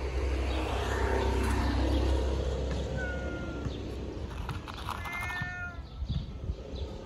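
Fluffy ginger cat meowing several times, with a long meow about five seconds in, asking for food.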